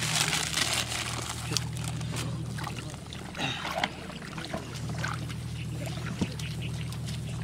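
Water sloshing and trickling in a plastic tub as it is handled and lifted, with a few short knocks and rustles, over a steady low hum.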